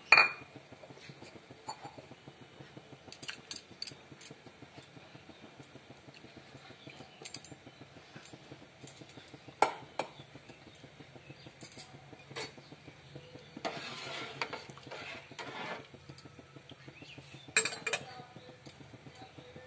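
Metal kitchen pot and utensils clanking: a sharp clank at the very start, then single knocks about halfway and near the end. A couple of seconds of rustling, scraping noise come about two-thirds through, over a faint steady low hum.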